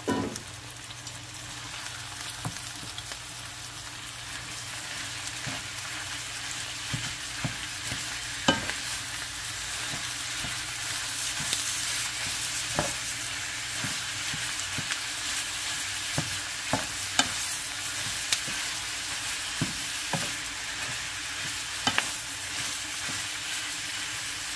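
Ground pork frying with a steady sizzle in a nonstick pan with onion and garlic, stirred and broken up with a wooden spatula that knocks sharply against the pan now and then. The sizzle grows slowly louder.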